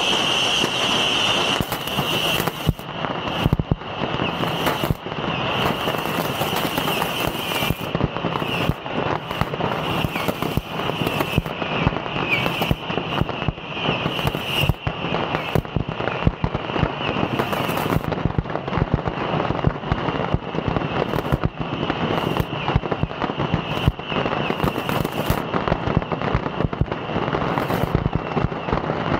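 A beehive rack of bottle rockets firing into a crowd: a dense, unbroken barrage of cracks and pops, with a steady high-pitched tone running through it.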